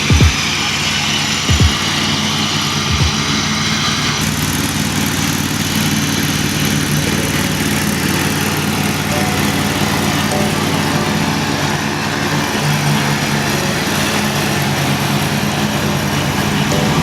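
Ride-on lawn mower engine idling steadily, with a few brief low thumps in the first three seconds.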